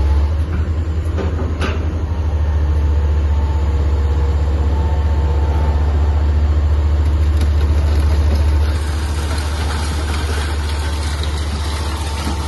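Hydraulic excavator's diesel engine running steadily in a low rumble, with a few faint sharp knocks as it breaks up the concrete building.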